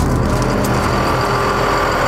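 The truck's Cummins ISB 5.9L diesel engine running steadily, with a faint high whine coming in about halfway through.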